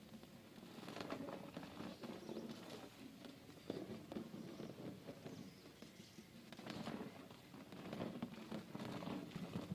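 A vacuum cleaner part being hand-washed in water: uneven scrubbing and rubbing, with scattered clicks of handled plastic.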